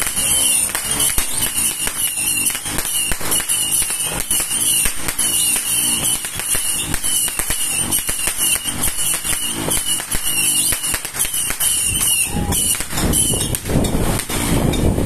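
Diamond Fireworks Crossfire 200-shot cake firing in rapid succession: a continuous stream of sharp launch pops and bursts, several a second.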